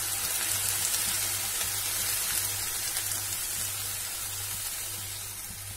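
Chopped banana flower sizzling in oil and water in a pan while being stirred with a wooden spatula: a steady hiss that eases off a little near the end.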